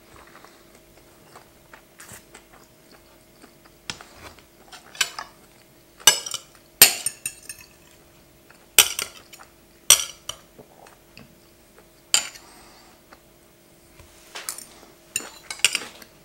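Knife and fork clinking and scraping against a plate while cutting roast chicken: irregular sharp clinks, a few seconds apart at first and coming closer together near the end. A faint steady hum sits underneath.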